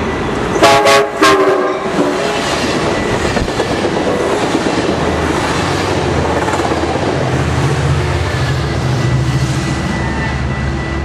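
Passenger train sounds its horn in a few short blasts about a second in, then its double-deck coaches pass close by with a steady wheel-on-rail rumble and clatter.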